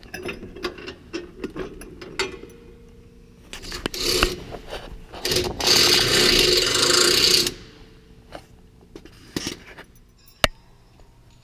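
Pneumatic wrench tightening a grille guard mounting bolt on a truck frame: a short burst about four seconds in, then a steady run of about two seconds. Light metal clinks around it and one sharp click near the end.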